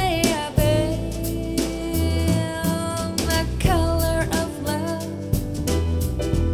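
A soul jazz song: a singer holds and bends notes over a bass line and a steady drum beat, played back through in-ear monitors.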